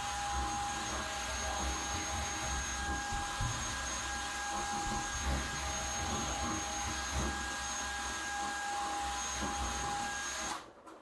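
Cordless drill spinning a sanding pad with 3000-grit paper against a plastic (Lexan) headlight lens, running at a steady speed with a constant motor whine. It stops near the end.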